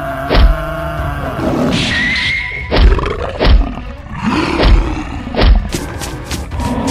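Cartoon fight sound effects: animal roars with five heavy impact thuds spread through the few seconds, over background music.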